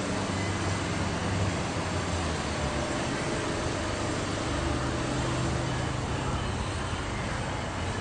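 Steady background rumble and hiss with a low hum underneath, like distant traffic or building noise.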